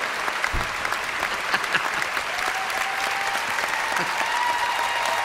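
Concert audience applauding steadily, a dense patter of clapping hands.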